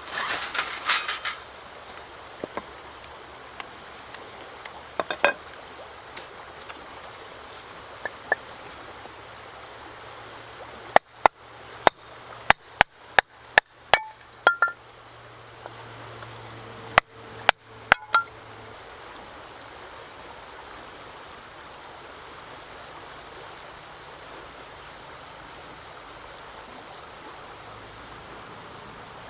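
A run of sharp knocks and clinks, about a dozen in quick succession near the middle, with a few single clicks and a brief cluster of clinks at the start, over a steady rushing background.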